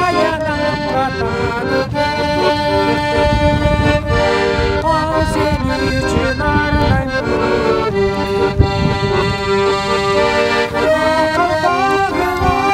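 Piano accordion playing a folk tune in held, changing chords.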